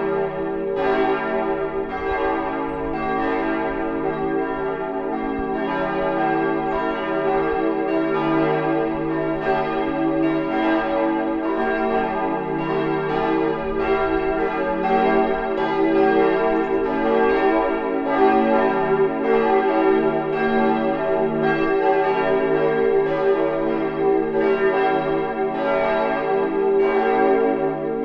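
Church bells ringing in full peal (Vollgeläut), all the bells together, their strokes coming continuously and overlapping in one steady ringing. This is the ringing-in that calls to the Sunday service.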